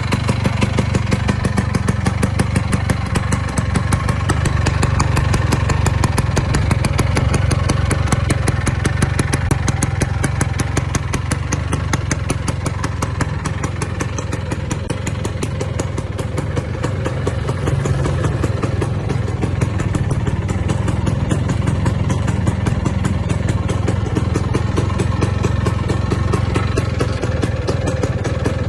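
Vespa PK125 scooter's single-cylinder two-stroke engine idling steadily with a fast, even putter.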